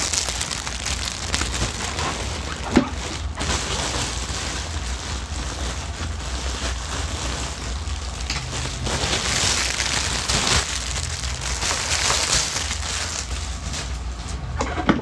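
Packaging being handled and crumpled, a continuous crinkling rustle, with one sharp knock about three seconds in.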